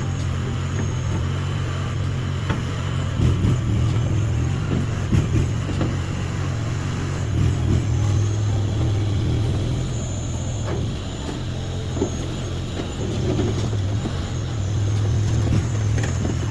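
Mini skid steer's small engine running steadily, with occasional short knocks and clanks from the machine.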